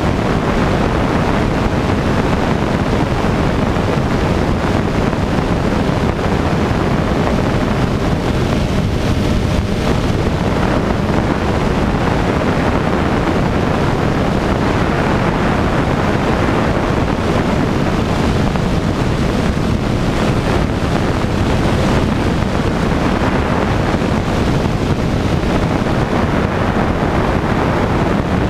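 Rainbow Aircraft Cheetah light aircraft's engine and propeller running steadily in flight, mixed with heavy wind rush on a microphone mounted outside the cabin.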